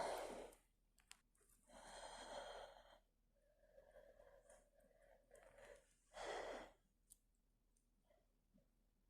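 A woman breathing heavily through a bout of sneezing: a long breath about two seconds in and a short, stronger breath about six seconds in, with faint small sounds between them.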